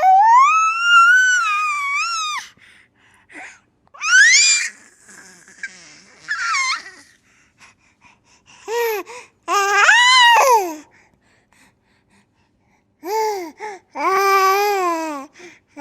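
High-pitched baby-like squeals, cries and babbling in several separate bursts with pauses between: a long rising squeal at the start, a quick upward squeak about four seconds in, and short arched wails in the second half.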